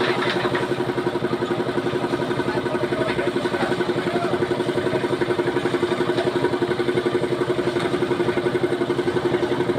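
Small engine of a portable drum concrete mixer running steadily, with a fast, even chugging pulse.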